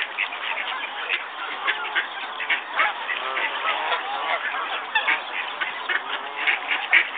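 A flock of waterfowl calling continuously: many overlapping short quacks and honks from several birds at once, with no pause.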